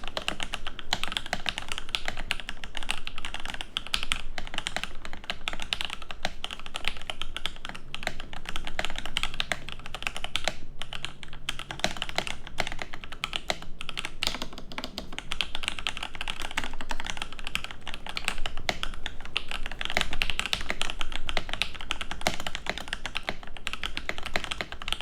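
Steady, fast typing on a mechanical keyboard fitted with lubed Alpaca linear switches: a continuous stream of key presses and bottom-outs throughout.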